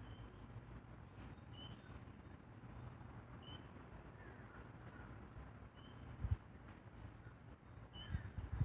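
Faint outdoor ambience: birds chirping in short calls every second or so over a low steady rumble, with a couple of dull thumps near the end.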